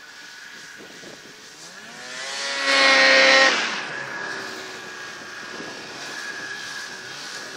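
1999 Ski-Doo Summit 600 snowmobile's two-stroke engine passing close by at speed: the engine note climbs as it approaches, is loudest about three seconds in, then drops in pitch and fades to a steady drone as it moves off.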